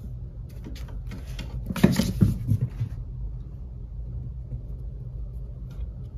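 A cat scuffling and batting about with a catnip toy mouse on a wooden floor: soft knocks and thuds, loudest in a short flurry about two seconds in, over a steady low hum.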